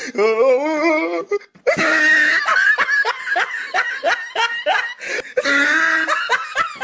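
Hearty human laughter: a wavering high-pitched giggle, then after a brief break a long run of quick repeated laughs.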